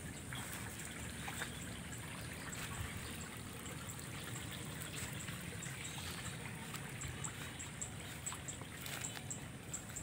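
Water trickling in a flooded rice-paddy ditch, a steady soft wash with small scattered clicks. A thin high-pitched tone with short regular pulses runs through it from about halfway in.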